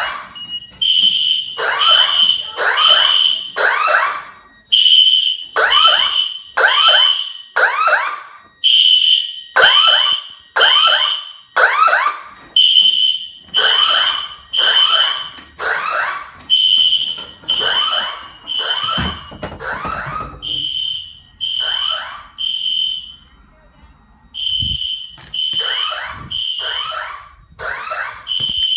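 Home fire alarm system sounding in alarm, set off on purpose as a test: a repeated high-pitched beep alternating with a falling tone sweep, about once a second. Two dull thumps come about two-thirds of the way through.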